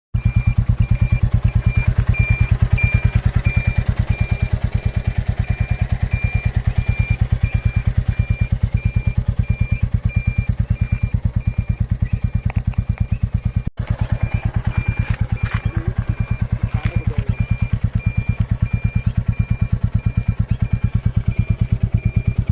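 Royal Enfield Classic 350's single-cylinder engine idling, with a steady, rapid, even thump from the exhaust.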